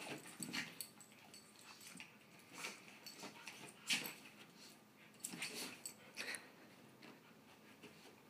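A Siberian husky and a chihuahua play-fighting: scattered short dog noises and scuffles, the sharpest about four seconds in.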